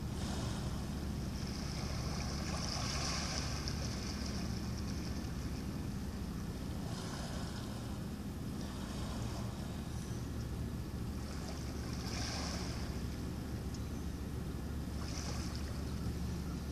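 A steady low engine hum, with small waves washing on the shore in soft swells every few seconds.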